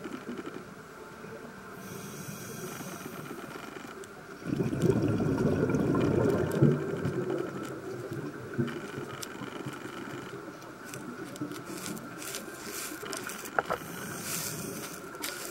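Underwater pool ambience picked up by a submerged camera: a steady muffled hiss with a faint constant hum, a louder rumbling stretch of about two seconds just under halfway through, and scattered clicks and crackles later on.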